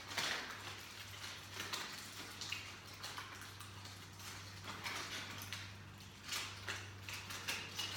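Scattered clicks and rustles of food, dishes and containers being handled during a meal, over a steady low hum.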